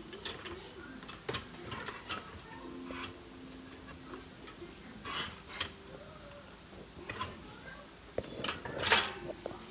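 Bowls being handled and set down: scattered clinks and knocks, with a longer scraping rub about five seconds in and another near the end.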